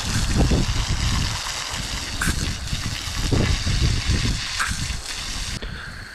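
Garden hose spraying water onto a hot tub's pleated cartridge filter, rinsing the dirt out of it; a steady gushing hiss that thins out abruptly near the end.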